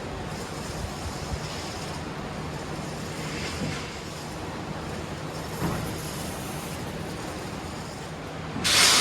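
Steady vehicle running noise: a low engine hum under a wash of road or wind noise, with one short loud hiss near the end.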